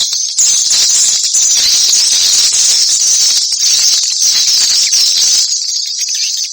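Swiftlet call-sound recording: a dense, continuous high-pitched twittering of many swiftlets, the kind of lure sound played to draw swiftlets into a nesting house. From about half a second in to about five and a half seconds it is louder, with a rushing noise underneath.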